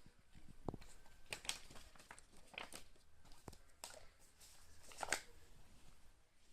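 Packaging being handled: irregular crinkling and rustling of plastic wrap or paper, with a few light knocks.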